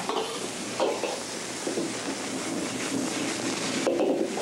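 Egg and rice sizzling in a hot oiled wok: a steady hiss, with a metal spatula stirring and scraping the pan and knocking it briefly a couple of times.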